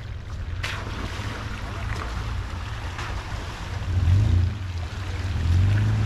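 Toyota Land Cruiser 80-series engine rumbling at low speed as the truck crawls through a muddy, water-filled rut, with water sloshing around the tyres and wind on the microphone. It grows louder about four seconds in and again near the end as the truck comes closer.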